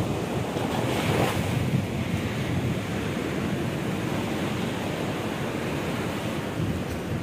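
Wind buffeting the microphone: a steady rushing rumble, with a brief brighter swell about a second in.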